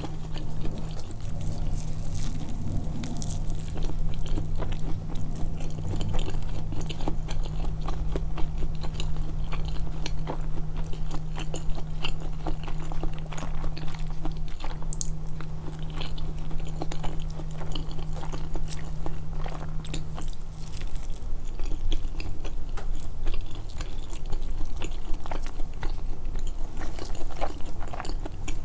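Close-miked chewing and biting: moist, irregular mouth clicks and crunches of food being eaten. A low steady hum runs underneath and stops about two-thirds of the way through.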